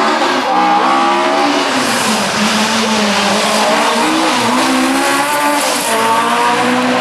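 Ford Escort Mk2 rally car driven flat out past on a loose gravel stage, its engine note climbing and dropping as the driver accelerates, lifts and accelerates again, twice. Under the engine, a steady hiss of tyres working through the loose gravel.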